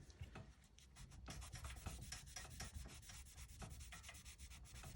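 Faint, irregular scrubbing of a microfibre towel pressed against the engraved surface of a firearm, working crayon wax into the engraving.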